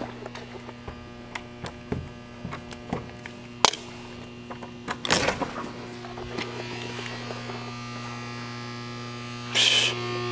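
A steady electrical buzz that grows slightly louder over the second half, with scattered clicks and knocks on top. The sharpest knock comes about three and a half seconds in, and a short noisy burst comes near the end.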